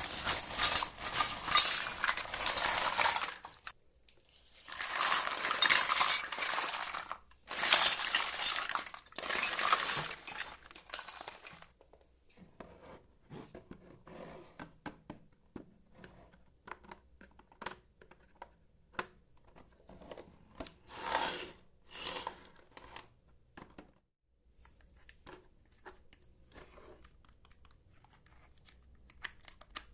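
Miniature toy kitchen pieces being handled and clinking together. There are three stretches of dense rattling in the first twelve seconds, then scattered light clicks and taps.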